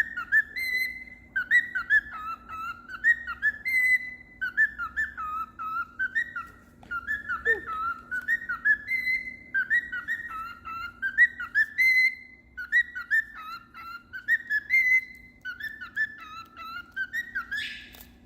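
Cockatiel whistling a tune: quick chirpy notes in short phrases, repeated over and over, with a faint steady hum underneath.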